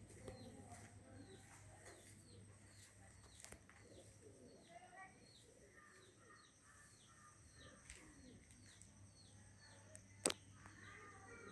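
Faint background: a small bird repeating a short falling chirp about twice a second, over a low steady hum. A single sharp click sounds about ten seconds in.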